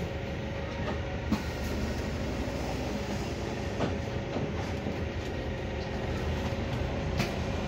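Inside a Volvo B5LH hybrid double-decker bus standing still: a steady hum from the bus with a faint constant whine, and a few light clicks and knocks.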